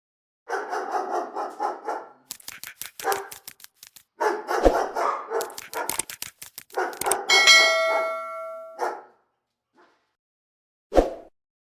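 Animal calls in three bursts separated by silent gaps, with a steady ringing tone about seven seconds in and one short call near the end.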